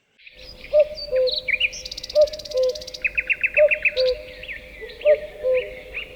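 Several birds singing at once: a low two-note hooting call repeats about once a second beneath higher chirps, whistled trills and a short fast rattle.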